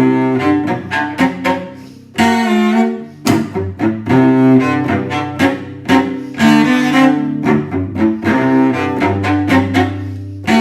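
Solo cello playing a jazzy piece: a quick run of short, accented notes, many of them low.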